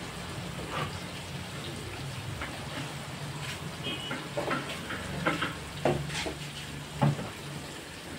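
Food shallow-frying in hot oil in a steel pan over a wood fire: a steady sizzle broken by scattered pops and crackles, the loudest near the end.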